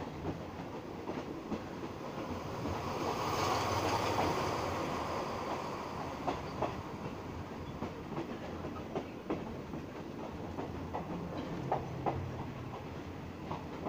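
A train running on the rails, with scattered sharp clicks of the wheels over rail joints. A louder rushing swell builds and fades about three to five seconds in.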